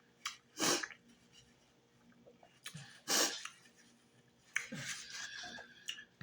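A person's breath close to the microphone: a few short, sharp puffs of air like forceful exhales or sniffs, the strongest about a second in and about three seconds in, with a rougher breathy stretch near the end and a few small mouth clicks.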